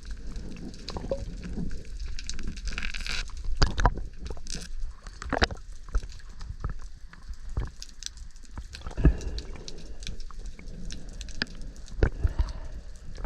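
Underwater sound picked up by a GoPro in its housing: irregular clicks and knocks, with a few louder ones about four, five and a half, nine and twelve seconds in, over a low rumble of water movement.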